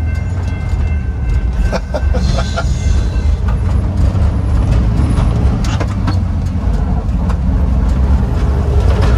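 Inside the cab of a 1964 VW Type 2 Ruthmann V80 cherry picker truck, its air-cooled flat-four engine runs under way with a steady low drone. There are scattered knocks and rattles from the body, and a few faint high tones in the first few seconds.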